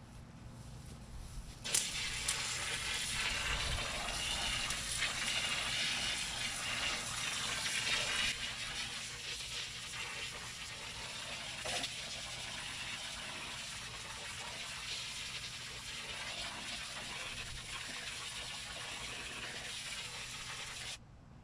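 Turbo nozzle on a garden hose spraying a water jet into soil. The hiss starts suddenly about two seconds in, runs steadily, then cuts off just before the end.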